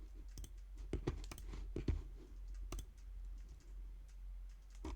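Computer keyboard typing and clicks, irregular and scattered, over a steady low hum.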